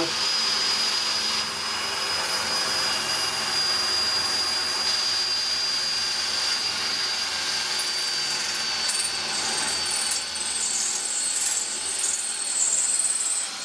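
Power drill running steadily with a Bosch metal cutter boring a hole through a pressed steel bath, with a high whine throughout. From about nine seconds in, a higher, uneven screech of the cutter on the steel joins in.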